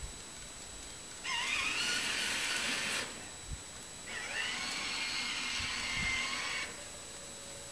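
Electric motors of a robotic snow shovel whining in two runs, each starting with a rising pitch as they spin up. The first run lasts under two seconds and the second about two and a half, with a light knock between them.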